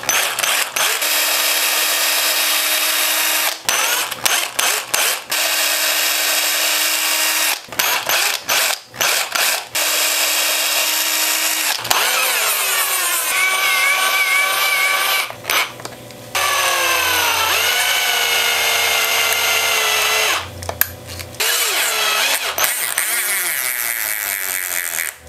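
Cordless drill running in repeated bursts, several seconds each with short stops between, as it bores small holes into the hard, cured resin-foam body of a rubber toy spider for hook hangers. Partway through, the motor's pitch wavers and dips under load.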